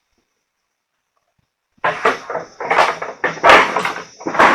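Silence for nearly two seconds, then a run of loud, irregular knocks, clatters and scrapes as buggy parts are handled and test-fitted.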